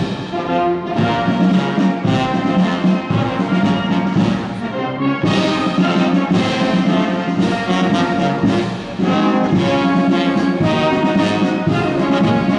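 Military marching band playing a march on brass instruments (tubas, trombones, horns) as it marches, with a steady marching beat.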